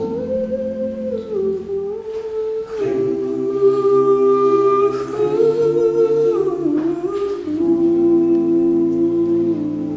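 All-male a cappella group singing wordless humming harmonies, several voices holding chords that shift every second or two.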